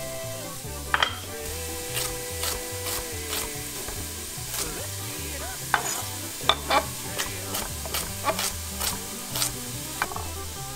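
Chef's knife slicing carrots on a wooden butcher-block board: a dozen or more sharp, irregular knocks of the blade hitting the wood, with background music carrying a steady bass beat underneath.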